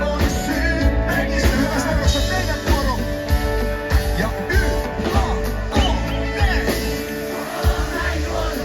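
Live band playing a song with singing over a steady drum beat.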